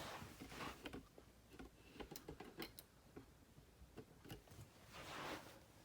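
Faint scattered clicks and light rattling of plastic K'nex rods and connectors being handled as a connector is unclipped and a cage section folded down, with a soft rush of noise near the end.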